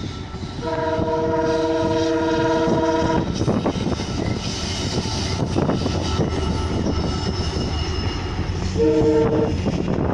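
WDP-4B diesel locomotive sounding its multi-tone horn in one blast of about two and a half seconds, then a short toot near the end, over the steady rumble of the engine and the coaches running on the rails.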